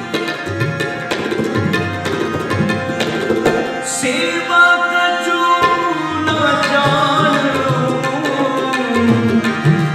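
Kirtan on tabla and harmonium, the tabla keeping a steady rhythm under the harmonium's sustained chords. About four seconds in, a man's singing voice comes in on a long held note and then moves into a winding melody.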